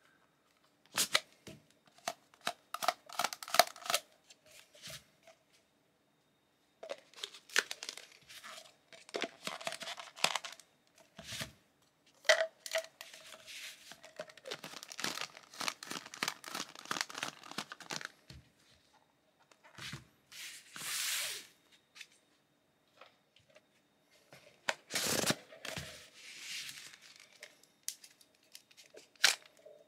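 Clear plastic storage tubes and cases being handled with gloved hands: irregular clicks, knocks and scraping or rustling as a glue gun and glue sticks are slid in and out and lids are fitted.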